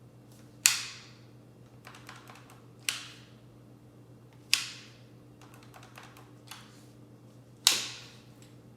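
An H&K MP5 .22 LR rifle's controls being worked by hand: four sharp metallic clicks, each with a short ringing tail, with lighter clicks and handling between them.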